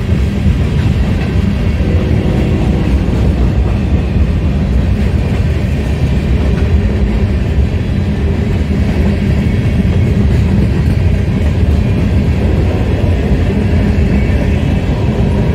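Freight cars of a mixed manifest train (tank cars, boxcars, covered hoppers) rolling past: a loud, steady rumble of steel wheels on the rails.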